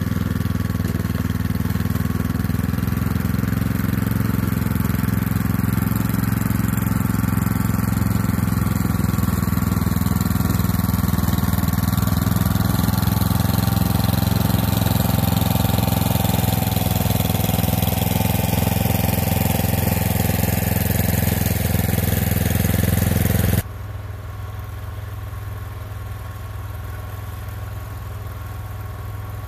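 Gasoline engine of a track-drive walk-behind snowblower running steadily under load as it throws snow. About three-quarters of the way through the sound drops abruptly to a quieter, more distant engine hum.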